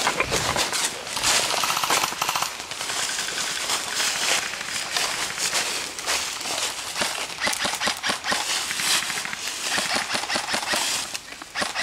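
Airsoft guns firing in rapid bursts: a fast stream of sharp clicks and pops that eases off near the end.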